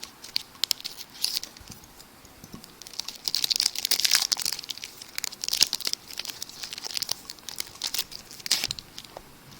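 Wrapper of a baseball card pack crinkling and tearing as it is ripped open, in uneven spells of crackle that are busiest from about three to six seconds in.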